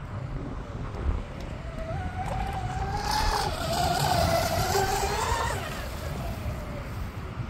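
Twin brushless outrunner motors of a fast electric RC speedboat whining at high speed as the boat makes a sprint past. The whine comes up, wavers in pitch while loudest with a hiss of spray, then fades away.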